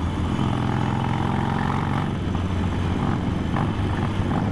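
Harley-Davidson Iron 883's air-cooled V-twin engine running steadily while the motorcycle cruises along the road.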